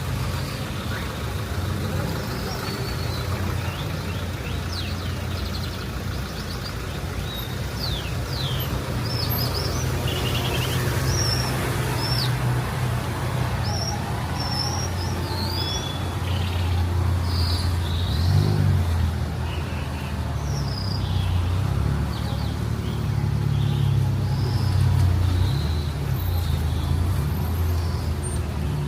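Steady low rumble of street traffic, swelling as vehicles pass, with many short bird chirps over it through the middle of the stretch.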